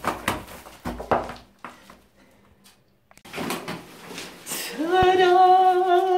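Several quick hammer blows chipping plaster off a wall in the first second and a half. After a pause, a woman's voice rises into one long, loud held note about five seconds in, the loudest sound here.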